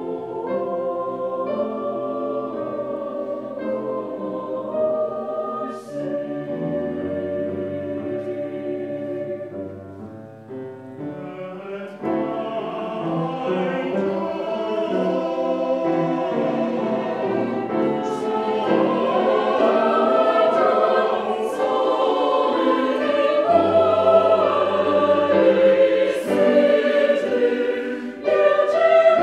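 Mixed-voice choir singing held notes in harmony. It thins to a quieter passage about ten seconds in, then swells fuller and louder toward the end.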